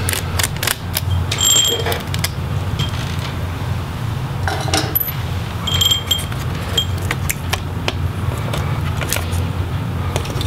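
Small clicks and metallic clinks of a screwdriver and a laptop's heatsink-and-fan assembly being unscrewed and worked loose by hand, with two short bright metallic rings about a second and a half and six seconds in. A steady low hum runs underneath.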